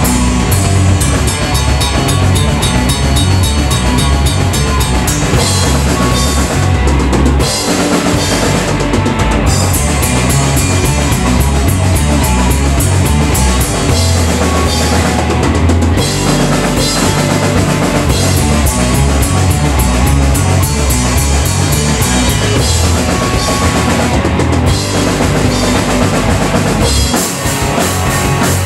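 A live rock band playing loudly in a small rehearsal room: a drum kit with frequent cymbal crashes and kick drum under amplified electric guitars, with a few short breaks in the cymbals.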